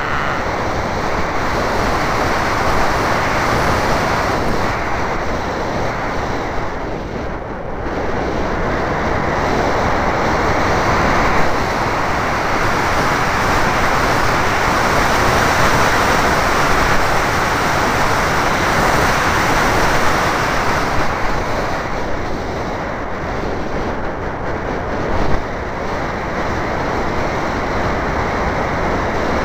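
Motor and wind noise of a Wild Hawk radio-controlled model airplane in flight, heard from a camera mounted on the plane: a steady rushing noise that dips briefly about seven to eight seconds in.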